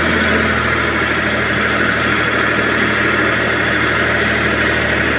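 Old Ford tractor's diesel engine running steadily at a constant, low speed.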